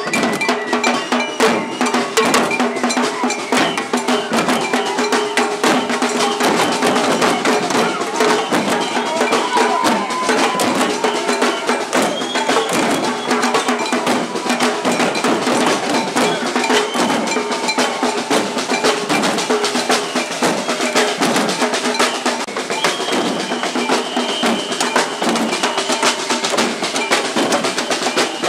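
Many people beating improvised percussion together, metal objects and drums struck over and over in a dense, continuous clatter, the noise-making of a marching protest.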